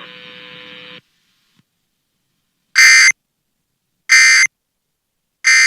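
Emergency Alert System end-of-message data signal: three short, loud, identical digital tone bursts about a second and a bit apart, the code that closes an EAS alert. Before them a faint hum of the broadcast audio cuts off about a second in.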